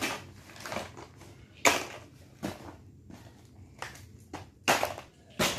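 Clear plastic packaging crinkling in several short, irregular bursts as a toy dump truck is pushed and handled on top of it.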